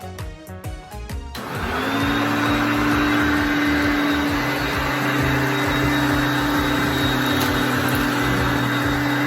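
Hoover Concept One upright vacuum cleaner switched on after a moment of background music. Its 5-amp motor spins up, its pitch rising briefly, then runs loud and steady with a high whine.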